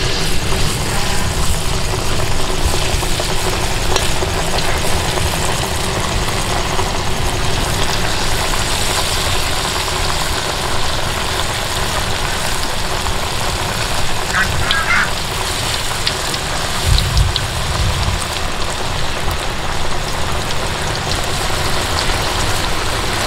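Coconut-pulp fritter batter sizzling steadily in hot oil in a wok as spoonfuls are dropped in to deep-fry.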